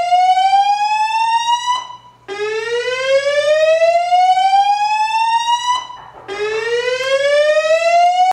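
Building fire-alarm evacuation tone from the voice-alarm speakers: a loud slow whoop that rises in pitch over about three and a half seconds, breaks off briefly, and starts again, signalling a reported emergency. One sweep ends about two seconds in, a full sweep follows, and a third is rising at the end.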